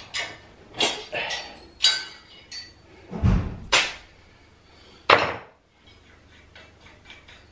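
Irregular clinks and knocks from an antique metal chandelier being handled and fitted to a ceiling rose. A heavier low thump comes about three seconds in and the loudest sharp knock about five seconds in, followed by a few faint ticks.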